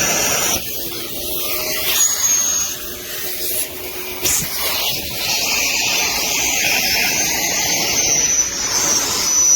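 Festool dust-extraction vacuum drawing air through an orbital sander's plastic hose adapter: a steady rush of suction with a high whistle that comes and goes, a really terrible noise caused by the poorly fitting adapter.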